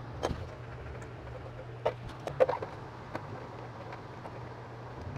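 A few scattered sharp metallic clicks and knocks, the loudest about two and a half seconds in, from a socket wrench and 10mm bolts being worked as a scooter's front fender is unbolted, over a steady low hum.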